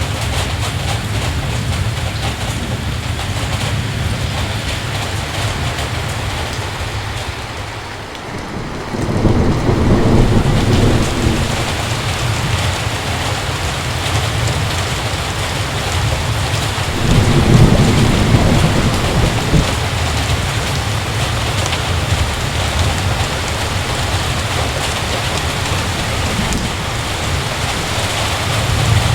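Heavy rain falling steadily, with thunder rumbling twice: a roll about a third of the way in and another a little past the middle.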